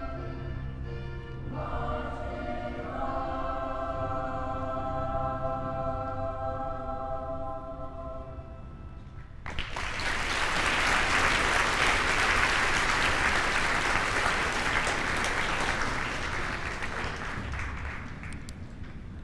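A choir holding long sung chords that shift a couple of times and then fade away. About nine and a half seconds in, an audience breaks into loud applause that runs on and slowly tapers.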